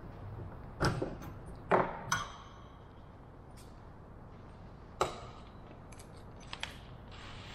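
Several sharp clinks and knocks of metal parts or hand tools being handled on a workbench, a few of them with a brief metallic ring. They come singly and irregularly, a second or more apart.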